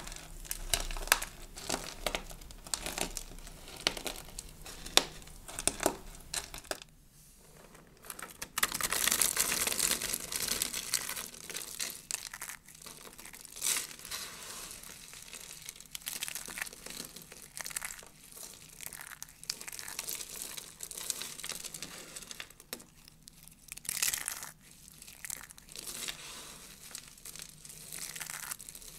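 Dry, brittle soap flakes and curls being pressed, crushed and squeezed by hand, giving a continuous crisp crackling and crunching made of many small snaps. It drops off briefly about a quarter of the way through, then comes back at its loudest for a couple of seconds before settling into steady crunching.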